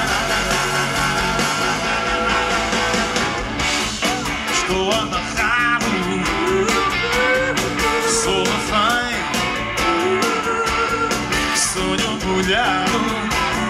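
Live band playing an upbeat pop-rock song on electric guitars and drum kit. A wavering lead melody line comes in over the band about four seconds in.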